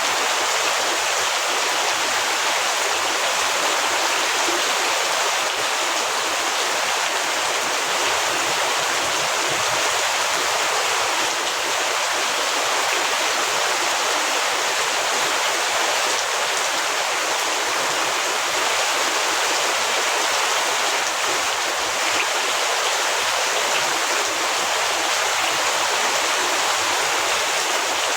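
Heavy rain falling steadily, an even, unbroken hiss with no separate drops or thunder standing out.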